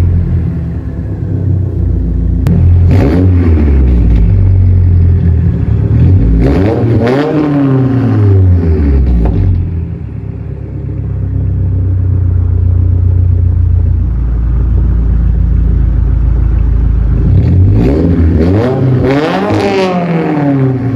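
Straight-piped, tuned Subaru WRX (VB) turbocharged 2.4-litre flat-four idling and being revved three times, a short blip about three seconds in and two longer revs that climb and fall back, around the middle and near the end.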